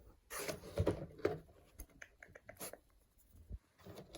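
Small clicks, taps and brief rustling as new faucet parts and their packaging are handled, with a quick string of light ticks about two seconds in.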